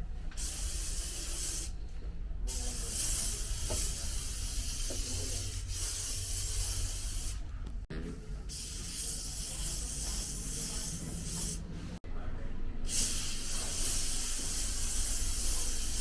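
Aerosol can of Lysol disinfectant spray hissing in long sprays. There are four sprays of several seconds each, with brief pauses between them.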